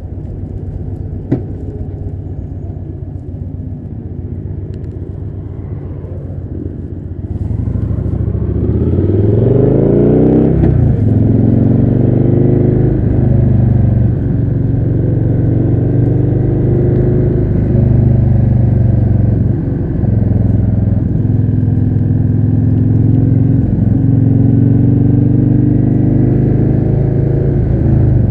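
Victory Hammer 8-Ball's V-twin engine heard from on the bike while riding. It runs quietly at first, then about eight seconds in revs up with rising pitch, changes gear near ten seconds, and settles into steady cruising, with a couple of short dips as the throttle eases.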